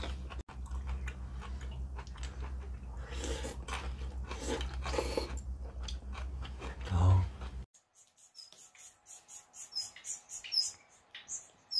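People eating cold noodles in water kimchi broth, with slurping and chewing sounds over a steady low hum. About eight seconds in it cuts to quiet, with repeated short, high bird chirps.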